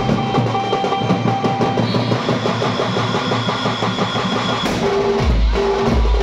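Indian band-party music played loud through a large loudspeaker rig: fast, dense sambal-style drumming with a melody line over it. A heavy bass beat comes back in near the end.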